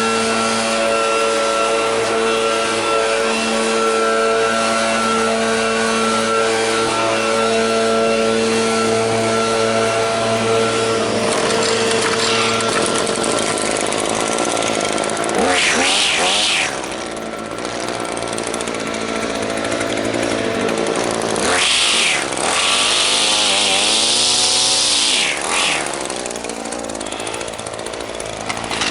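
Small two-stroke engine of a handheld lawn power tool running steadily. Its pitch bends down and back up twice, the second time for several seconds, as the throttle and load change.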